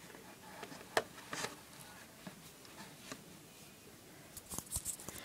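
A few light knocks and rustles as a small toy triple bunk bed is set down and shifted into place in a hamster cage, with a quick cluster of rustling taps near the end.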